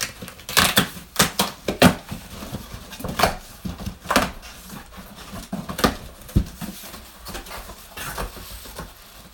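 Cardboard shipping box being torn open by hand: tape and cardboard ripping, flaps pulled back and the contents rustled, heard as a string of sharp, irregular tearing and scraping noises, loudest in the first two seconds.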